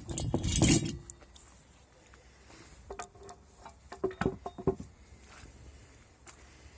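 A short rough scrape or rattle, then scattered light metallic clinks and knocks, a few of them ringing briefly, as metal parts are handled.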